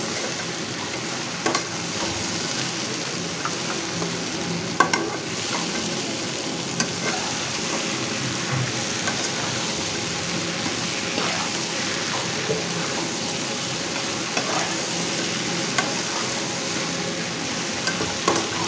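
Okra, onions and spices frying in a nonstick wok with a steady sizzle, while a metal spatula stirs and scrapes through them, clicking against the pan now and then, one knock about five seconds in sharper than the rest.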